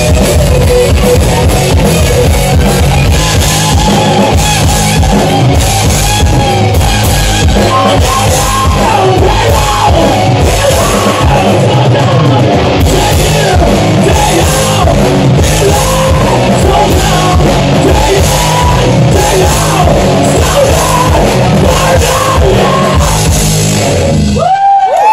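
Live rock band playing loud: distorted electric guitars over a driving drum kit, with a singer. The music cuts off sharply near the end, leaving one loud held high tone ringing on.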